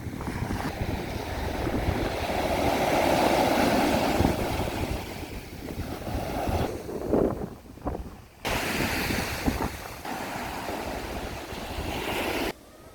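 Small waves washing in on a sandy beach, swelling and ebbing, with wind buffeting the microphone. The sound changes abruptly between takes a few times.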